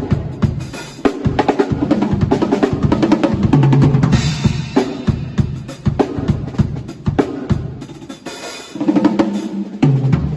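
Acoustic drum kit played in quick fills, mixing low pitched tom strokes with snare and bass drum hits, and a cymbal crash about four seconds in.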